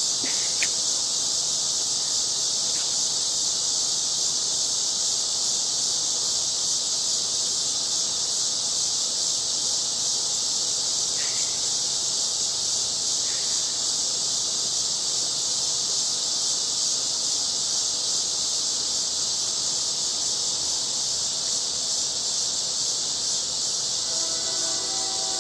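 Steady, high-pitched chorus of insects buzzing without pause.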